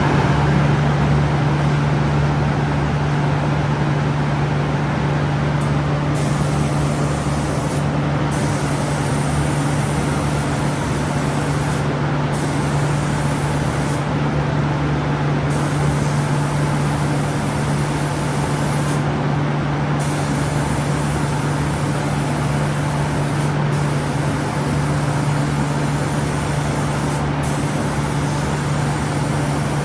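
A 5-axis CNC door spray-painting machine and its booth running: a steady mechanical hum under a continuous airy hiss that starts suddenly just before.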